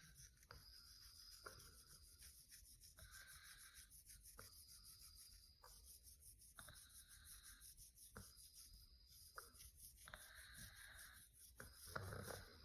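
Fingernails scratching through hair on a scalp to loosen dandruff, in rapid, steady, faint strokes with occasional sharper scrapes. There is a louder, lower sound near the end.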